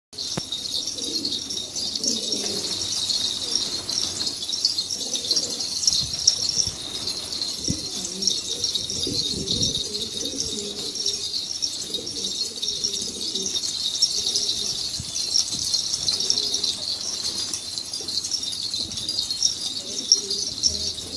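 Pigeons cooing again and again, low and soft, over a steady high-pitched hiss.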